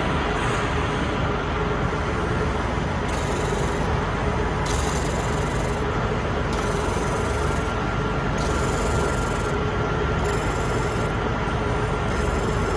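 Steady running noise of the chalk-block polishing line machinery: a continuous mechanical din with a few faint steady hum tones.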